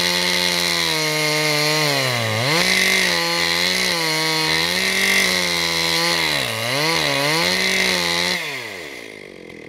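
Husqvarna two-stroke chainsaw at full throttle bucking a maple log into rounds, its pitch sagging twice as the chain bites into the hardwood and climbing back. Near the end the throttle is released and the engine drops away toward idle.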